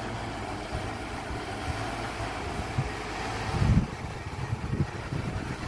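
Police EC135 helicopter hovering low overhead: a steady drone of turbine and rotor. Low thumps of wind buffeting the microphone, strongest a little before four seconds in.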